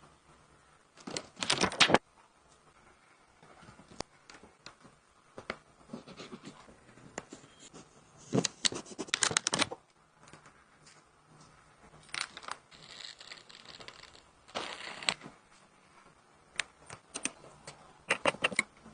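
Hand work on a smartphone under repair: short bursts of scraping and scratching from tools against the phone and its parts, with scattered light clicks and taps between them. The loudest bursts come about a second in and again near the middle, with a longer scratchy stretch a little past the middle.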